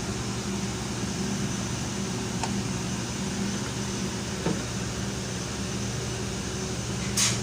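Steady machinery hum with a low drone. There are two faint clicks in the middle and a short hiss near the end.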